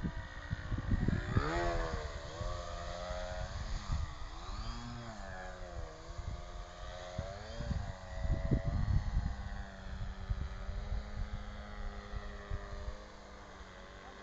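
MX-2 aerobatic RC model airplane's engine and propeller, its pitch swinging up and down repeatedly as the plane flies. Wind gusts buffet the microphone, strongest near the start and again about two-thirds of the way through. The sound drops somewhat near the end.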